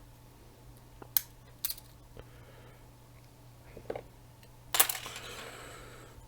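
Small clicks and taps of a thumb drive's circuit board and plastic casing being handled on a workbench, with a sharper clatter about three-quarters of the way through that rings briefly and fades.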